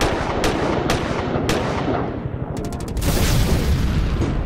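Intro sound effects for a logo animation: sharp cracks like gunfire over a dense rumbling bed. The cracks come about four times, spaced out over the first two seconds, then as a quick rattle near three seconds in, followed by a loud rush of noise.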